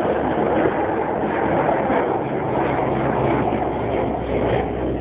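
Steady, continuous engine noise: a constant low rumble with a steady hum under a broad hiss, with no distinct knocks or breaks.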